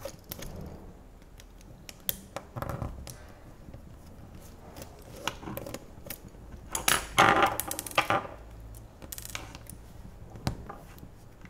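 Small clicks and scrapes of a precision Torx screwdriver working tiny screws in a cell phone's plastic body, with light handling taps of the phone and screws on a wooden desk. The loudest burst of rattling clicks comes a little past the middle, with a few single clicks later.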